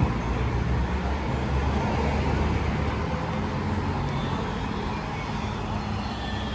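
City street traffic: the steady noise of road traffic with a motor vehicle's engine running close by, loudest a second or two in.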